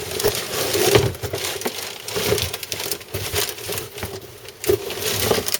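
Packaging crinkling and rustling, with scraping and knocks from a cardboard box, as an item is pulled out of it.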